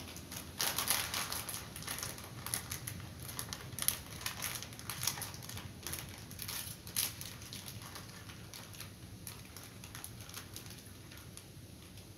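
Plastic snack packet crinkling as it is handled in the hands: a run of irregular rustles and crackles, densest in the first half and thinning out after.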